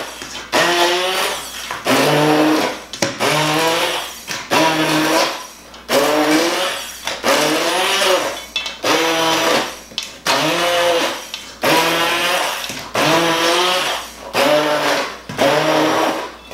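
Hand-held immersion blender running in short bursts about once a second, chopping still-whole pieces of tomato and vegetable in a metal bowl. The motor's pitch rises and then sags in each burst as the blade bites into the chunks.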